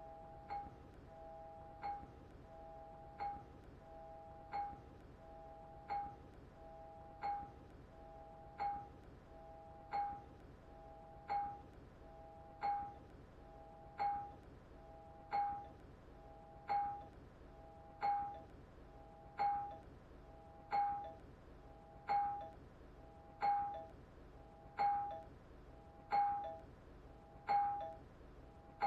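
A two-note ding-dong doorbell chime ringing over and over, about once every second and a half, each ring a higher note falling to a lower one. The rings grow gradually louder.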